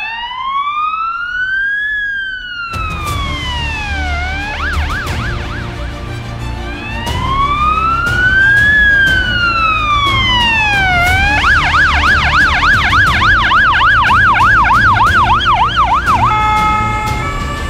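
Police car siren sounding a slow wail that rises and falls about every four seconds, twice switching to a fast yelp, the second time for about five seconds. Near the end it gives way to steady held tones.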